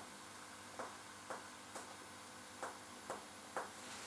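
Faint finger-on-finger percussion taps: the striking finger hitting the pleximeter finger pressed against the body. There are two groups of three short taps, about half a second apart.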